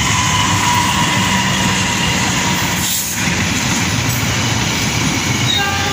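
Locomotive-hauled passenger train running through the station without stopping: a steady rumble and rattle of the diesel locomotive and its coaches' wheels on the rails, dipping briefly about three seconds in.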